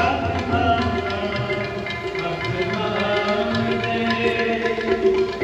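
Music: drum strokes over sustained, held melodic notes.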